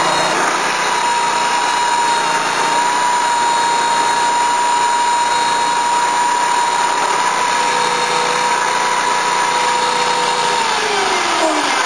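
Lucas Mill swing-blade sawmill running steadily under load as its circular blade cuts through a madrone burl. Near the end the engine note falls away as the throttle comes back and the slab is cut through.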